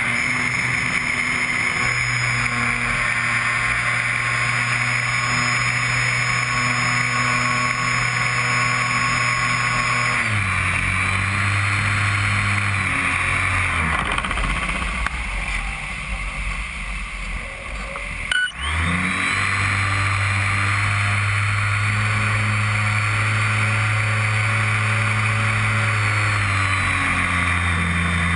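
RC airplane's motor and propeller running steadily at high throttle, heard from a camera mounted on the plane. The pitch steps down about a third of the way in and drops lower and quieter for a few seconds. After a brief click it comes back up, then eases down again near the end.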